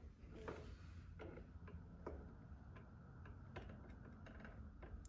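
Near silence: a faint low hum with scattered, irregular faint ticks and clicks.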